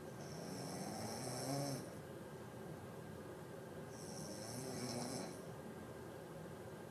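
A sleeping person snoring: two long snores about four seconds apart, each rising a little in pitch.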